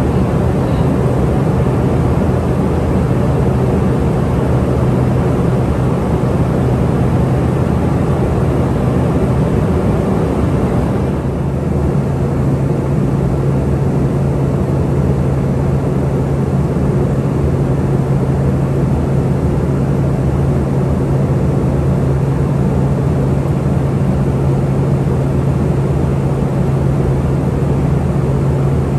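Cabin noise of an Embraer ERJ145 in cruise flight: a steady roar of airflow and its rear-mounted Rolls-Royce AE 3007 turbofan engines, with a low hum underneath. About eleven seconds in the hum steps slightly higher in pitch and the hiss eases a little.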